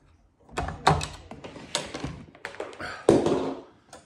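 Tableware knocked and set down on a table: a run of taps and clatters, loudest about a second in and again about three seconds in.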